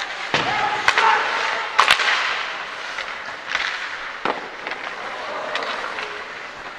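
Ice hockey play echoing in an indoor rink: sharp cracks of stick and puck, one about a second in, the loudest two close together near two seconds, another just past four seconds, over a steady scraping noise, with voices calling out.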